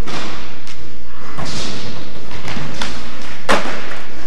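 Skateboard clacks and thuds against the ramp and floor, with a rolling rush partway through. The loudest is a sharp slam about three and a half seconds in, as the skater bails and the board hits the floor on its own.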